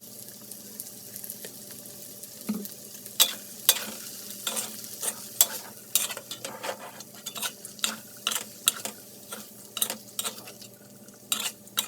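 Yam cakes and bean sprouts frying and sizzling in a pan while being stirred, a utensil clicking and scraping against the pan many times at an irregular pace from about three seconds in.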